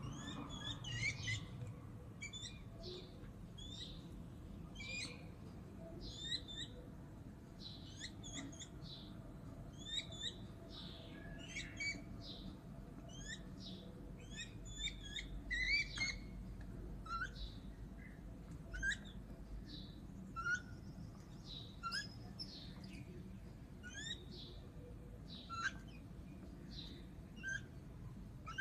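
Small birds chirping, with many short high calls repeated throughout and a few lower single notes in the second half.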